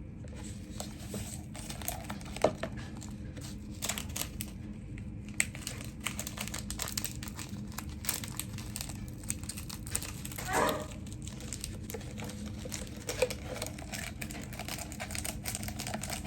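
Plastic wrapping of instant ramen packets crinkling and tearing as they are opened, with scattered small clicks and rustles.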